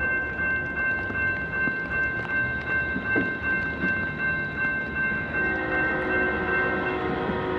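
Grade-crossing warning bell ringing steadily while the horn of an approaching train sounds in the distance, starting again about five and a half seconds in.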